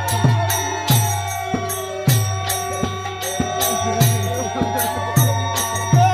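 Instrumental passage of Bengali devotional folk music (hari sangeet). A drum beats a steady rhythm of about two strokes a second, each stroke dropping in pitch. Jingling hand percussion plays over it, with a held, wavering melody line.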